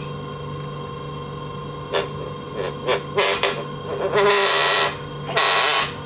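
Steady hum of a moving passenger train carriage. From about two seconds in, a seatback fold-down plastic tray table is worked open, giving several loud, harsh squeaking scrapes.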